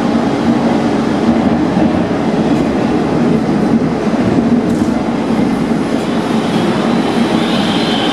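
Rome Metro line C train running, heard from inside the passenger car: a steady rumble of wheels and running gear, with a faint high whine coming in near the end.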